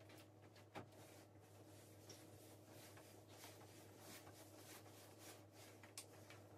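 Near silence: a faint steady hum with soft scattered clicks and rubs, a sharper click just under a second in and another near the end.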